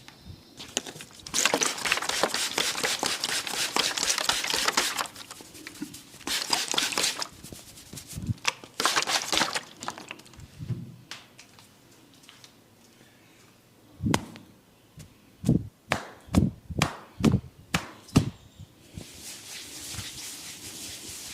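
Head massage close to the microphone: hair and scalp rubbed and scratched in rasping bursts of a few seconds each. In between comes a run of about seven sharp slaps or knocks, irregularly spaced.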